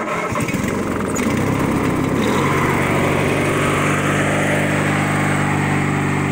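Huskee riding lawn tractor's 18.5 hp V-twin engine just started with the key. It runs roughly for about two seconds, then settles into a steady, even run.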